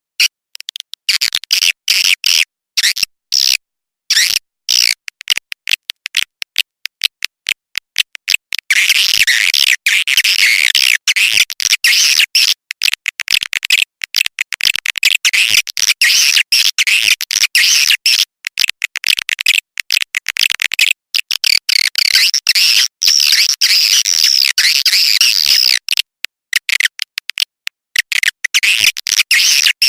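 Swiftlet lure call recording. It opens with rapid dry clicks; from about nine seconds in, dense high twittering chatter of swiftlets takes over. Near the end it breaks into clicks again, then returns to chatter.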